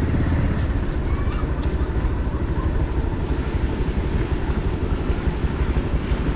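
Motorcycle engine running at a steady riding speed, with heavy wind rumble on the microphone.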